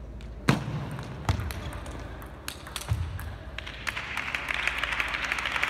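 Table tennis ball clicking off the bats and table a few times as a rally is played out. About three and a half seconds in, spectators start applauding the point.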